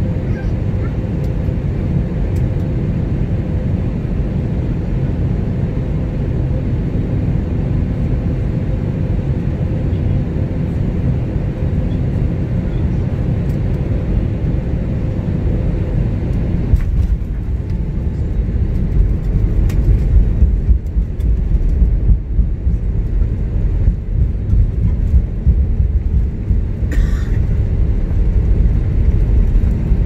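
Airliner cabin noise while the plane moves along the ground: a steady jet-engine drone and deep rumble. About halfway through, a steady hum drops out and the rumble grows louder.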